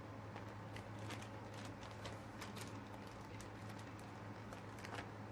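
Grated mozzarella being sprinkled by hand over pizza: faint, irregular light ticks and taps as the shreds drop, over a steady low hum.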